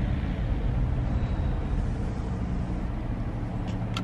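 Steady low rumble of a car's engine and road noise heard inside the cabin, with a couple of light clicks near the end.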